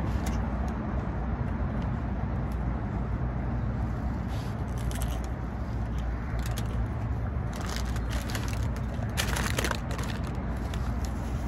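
A hard corn taco shell crunching in several short bursts as it is bitten and chewed, the loudest crunches about two-thirds of the way in, over a steady low background rumble.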